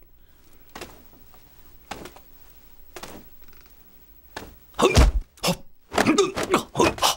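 Martial-arts film sound effects for a footwork clash: a few soft knocks, then from about four and a half seconds a fast flurry of loud thuds, whacks and swishes as feet and legs strike and sweep against each other.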